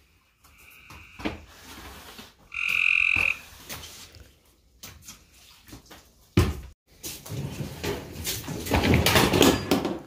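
Frog calling: a steady trilled note, faint about half a second in and loud around the third second. A sharp knock about six seconds in, then a loud noisy stretch of clattering near the end.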